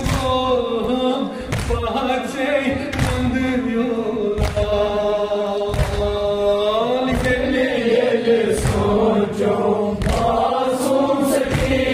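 Kashmiri noha (mourning dirge) chanted by a male reciter with a group of men joining in chorus. Under it come steady chest-beating (matam) strikes, roughly one every one and a half seconds.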